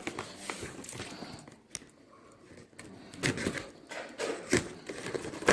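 Scattered clicks, knocks and rustles of things being handled, quieter for a moment about two seconds in, with a few sharper knocks in the second half.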